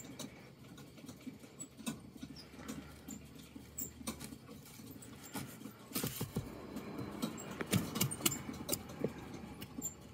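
Irregular scratching and tapping on cardboard as a corn snake constricts a live rat, the coils and the rat's feet shifting against the box floor. It grows louder and busier from about six seconds in.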